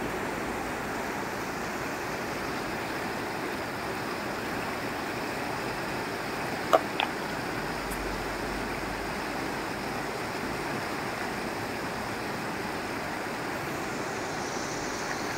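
Fast-flowing rocky river rapids rushing steadily, with two short clicks close together about halfway through.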